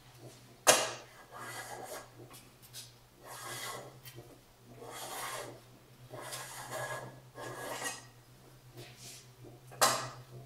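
Hand plane shaving split bamboo strips in a steel planing form: about six scraping strokes, each about a second long, with a sharp clack about a second in and another near the end.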